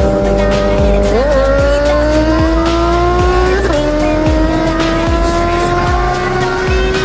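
Suzuki Bandit 650 inline-four motorcycle engine pulling hard at speed, its pitch rising steadily, with two quick upshifts about a second in and near the four-second mark, under heavy wind noise.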